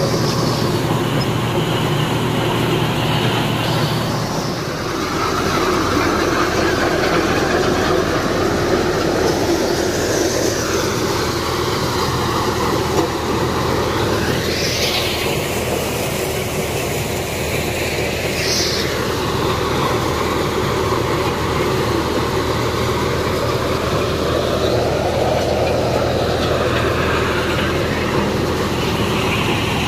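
John Deere 5310 tractor's three-cylinder diesel engine running steadily under load, driving a PTO maize thresher as it shells corn: a loud, continuous mechanical drone and hiss.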